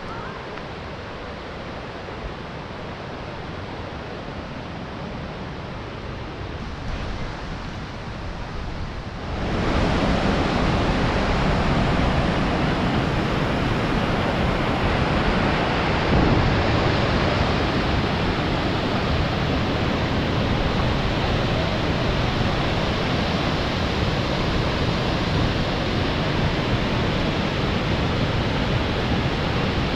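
Rushing water of a waterfall, a steady noise with no breaks. About nine seconds in it suddenly becomes much louder and stays so.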